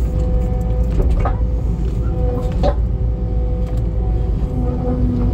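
Skid steer engine running steadily, heard from the operator's seat, with a faint steady whine above it and a couple of brief knocks about one and two and a half seconds in.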